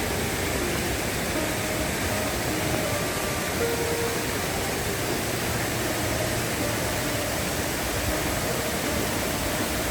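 Steady rushing noise of falling water from a waterfall, with a faint melody of background music over it.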